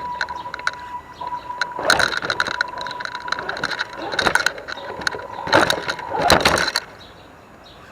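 Axial SCX10 DeadBolt RC crawler driving, heard from a camera on its hood: a steady high whine from its 27-turn electric motor and geartrain, broken several times by bursts of crunching and knocking as the tyres and chassis go over rough ground. The motor stops about a second before the end.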